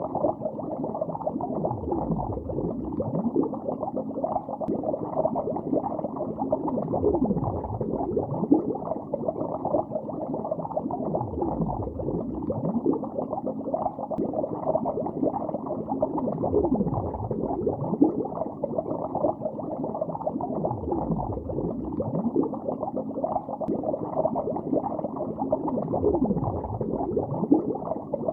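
Continuous bubbling of water heard underwater in a lake: a dense, muffled stream of small bubble gurgles. A deeper sweep dips and rises in pitch about every four to five seconds.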